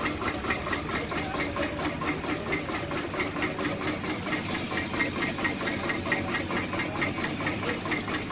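22-65 Keck-Gonnerman steam traction engine running steadily, with a quick, even beat of exhaust and a hiss of steam.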